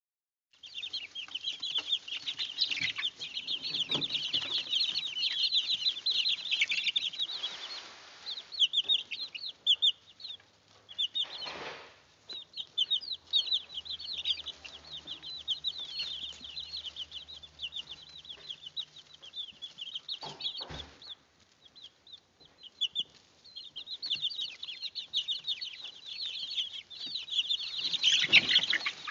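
A brood of young chicks peeping: a busy chorus of short, high peeps that thins out briefly twice, with a few short bumps among them.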